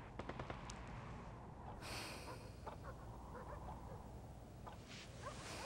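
Quiet meal sounds: a few light clicks of tableware against a clay pot near the start, then faint scattered chirps over a steady low room hum, with a short hiss about two seconds in.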